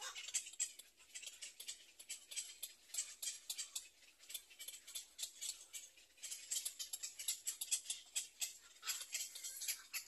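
Birds giving rapid, irregular high-pitched clicks and chirps, several short ticks a second, with no pause.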